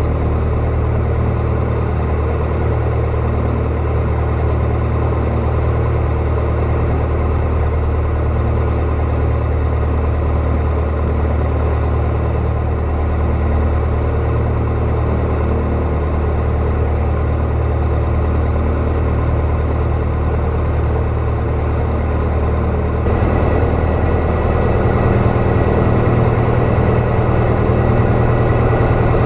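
Piper PA-28 light aircraft's piston engine and propeller idling steadily on the ground, heard from inside the cabin. It gets a little louder about 23 seconds in.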